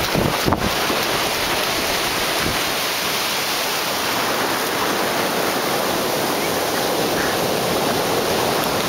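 A steady rushing noise of ocean surf with no rise or fall, with wind buffeting the microphone in the first half second.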